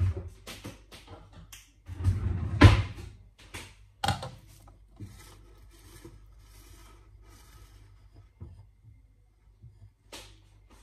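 Loud knocks and a clatter in the first few seconds, then cling film pulled from its roll and smoothed over a glass bowl of marinated chicken, crinkling softly.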